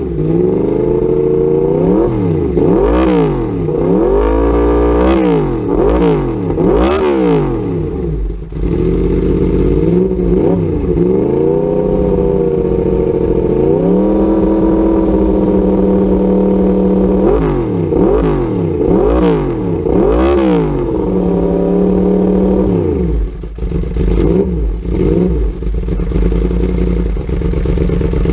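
2013 Yamaha R1's crossplane inline-four breathing through a TOCE exhaust, blipped to quick revs about once a second. Between the blips it holds a couple of steadier higher revs, then settles toward idle near the end.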